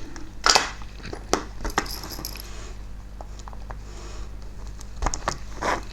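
Light clicks and taps of small tools and hard plastic and metal parts as an OO-gauge model locomotive is taken apart. There are sharp ticks about half a second in, a few more over the next second or so, and a small cluster near the end.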